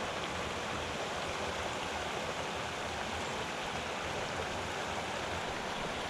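Small mountain stream rushing and babbling over rocks, a steady rush of water.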